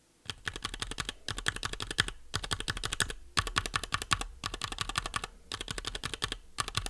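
Two mechanical keyboard keys fitted with stock, untreated Everglide Jade tactile switches, pressed rapidly over and over: runs of quick clacks about a second long with short pauses between. The switches sound a little rattly.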